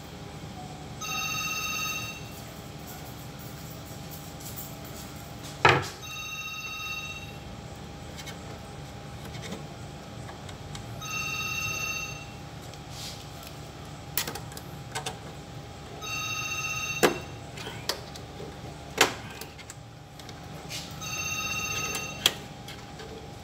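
A telephone ringing, one high electronic ring of about a second every five seconds, five rings in all. Between the rings come sharp clicks and knocks as hands work on the switch and wiring inside an opened steam autoclave. The loudest knock is about six seconds in.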